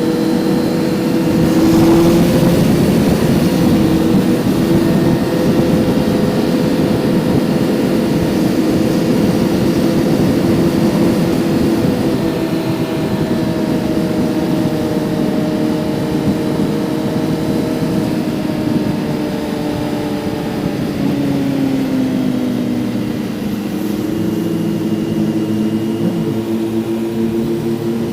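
Kawasaki Z900's inline-four engine running at a steady cruise, heard onboard over rushing wind noise. The engine's pitch drifts slightly and drops a little about three-quarters of the way through, then holds steady.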